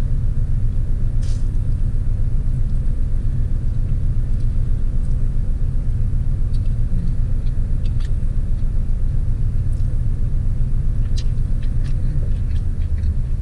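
Car engine idling, a steady low rumble heard from inside the cabin. Over it come a few soft clicks of noodles being slurped and chewed.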